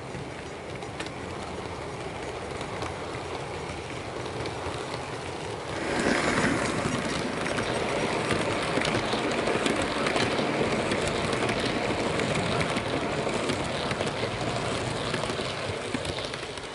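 Model passenger train running past close by, its wheels clicking over rail joints and pointwork. The train is steady at first, gets clearly louder about six seconds in as the coaches pass, and eases off near the end.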